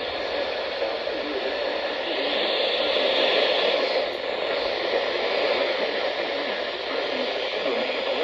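Steady radio static hiss from a receiver tuned between broadcast messages, with a faint steady whine under it.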